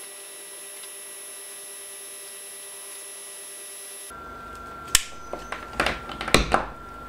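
A steady faint hiss with a soft hum for about four seconds. Then a quick cluster of clicks and knocks as hand tools and a small circuit board are picked up and set down on a silicone work mat.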